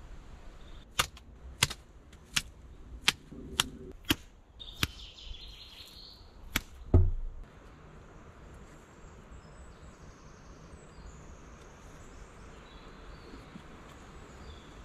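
A series of about eight sharp knocks, roughly one every two-thirds of a second, followed a few seconds later by one heavy thump, the loudest sound. After that there is quiet forest ambience with faint birds or insects.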